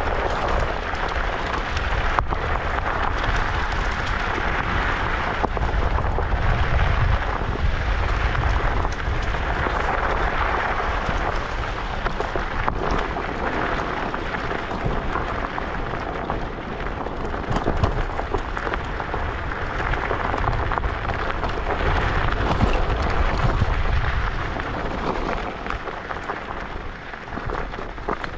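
Wind buffeting the action camera's microphone and tyre rumble from a ridden electric scooter: a continuous rushing noise with deep rumble, a faint steady hum underneath and a few sharp knocks. It eases a little near the end.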